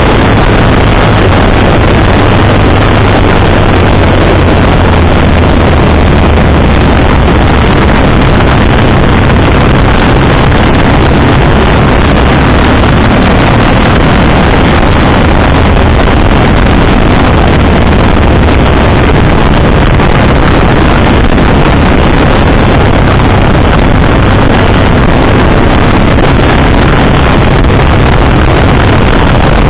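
Motorcycle engine running at riding speed, mixed with loud, steady wind rush on the microphone.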